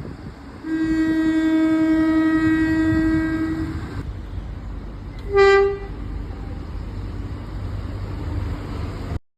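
Irish train horn sounding one long blast of about three seconds, then a short, louder toot on a slightly higher note about five seconds in, over the steady low rumble of the train.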